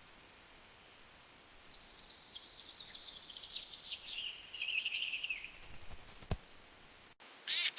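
A small bird singing a rapid chattering song that slides gradually lower in pitch, starting about two seconds in and lasting about three seconds. A few faint clicks follow, and loud chirps begin just before the end.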